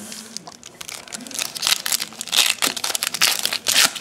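Foil wrapper of a Topps baseball card pack being handled and torn open: crinkling and tearing, with several louder bursts of crackle in the second half.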